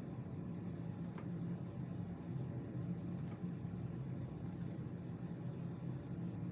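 Steady low hum of background noise picked up by a condenser microphone at full gain, with three faint, short ticks about one, three and four and a half seconds in.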